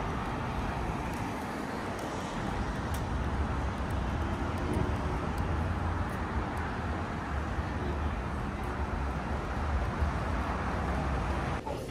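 A moving vehicle's steady low rumble under a constant wash of noise, cut off abruptly near the end.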